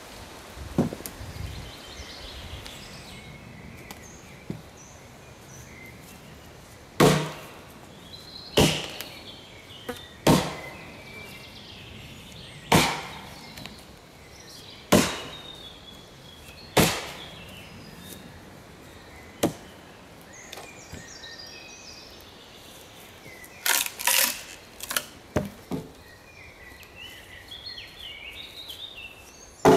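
Axe chopping into wood: a run of single sharp blows about two seconds apart, then a quicker cluster of strikes about 24 seconds in.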